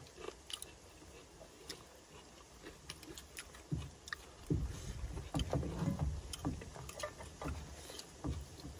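Light clicks and clinks of spoons against bowls and pots as people eat and stir food, over irregular low thumps and rumbles that become more frequent from about halfway through.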